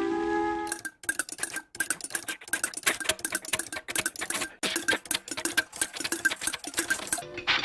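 A rapid, irregular clatter of sharp clicks and taps, several a second, each with a faint ring to it: a cartoon sound effect of mechanical tapping. It starts just under a second in, after a few sustained musical tones, and stops shortly before the end.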